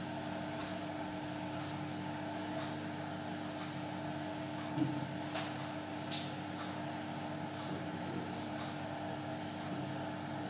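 A whiteboard wiped with a felt duster, with a few brief swishes about five to six seconds in, over a steady background hum.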